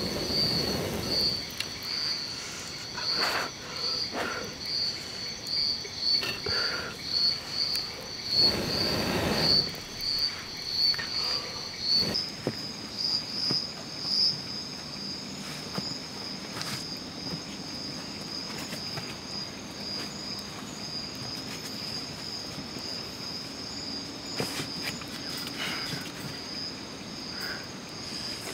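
Insects chirping in a high, pulsing trill of about two pulses a second. About twelve seconds in, it shifts to a slightly higher, steadier trill. A few louder short noises break in during the first ten seconds, with the biggest at the start and about nine seconds in.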